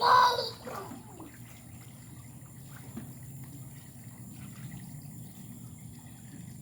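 A loud, rough burp lasting under a second at the start. After it, water trickles faintly in a swimming pool.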